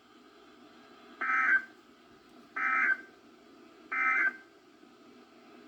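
Three short, buzzy data-tone bursts about a second and a half apart: the Emergency Alert System's SAME end-of-message tones, marking the end of a weather-warning broadcast.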